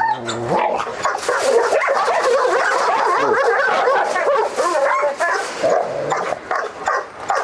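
A pitbull-type dog in a metal kennel barking continuously and aggressively at another dog outside the bars.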